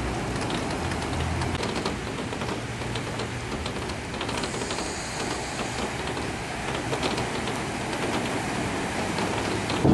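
Steady rain and sloshing, splashing water as cars drive slowly through a flooded street. A car engine hums low through the first second or so.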